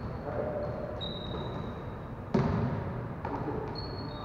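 Basketballs bouncing on a hardwood gym floor, echoing in the hall: one loud bounce a little over two seconds in and a fainter one about a second later, over background noise from the room.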